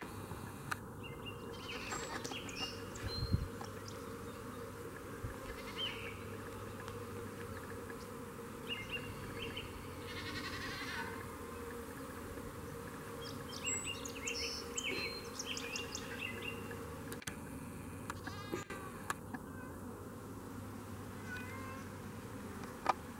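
Honeybees buzzing steadily around their hive, with short bird chirps scattered over the hum.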